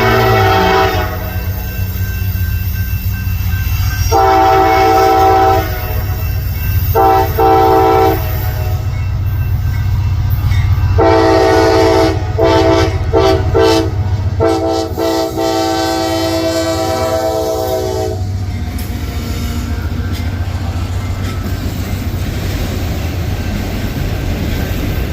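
Nathan K5LA five-chime air horn on a CSX GE AC44CW locomotive sounded as a horn show. A held chord fades out about a second in. Long blasts follow, then a quick run of short toots and a last long blast that stops about 18 seconds in. Under the horn the diesel locomotives rumble steadily, and afterwards the freight train rolls past with a steady rumble and wheel clatter.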